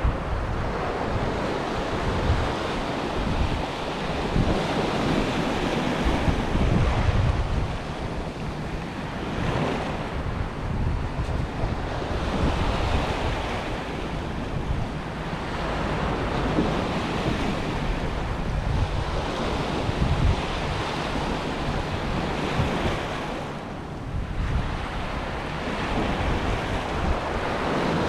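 Sea waves breaking and washing up the beach with the incoming tide: a continuous surf wash that swells and eases every few seconds. Wind buffets the microphone as a low rumble.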